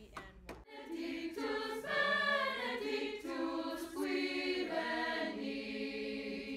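High school choir of mixed boys' and girls' voices singing together in parts, holding sustained chords that change every second or so. The singing starts just under a second in.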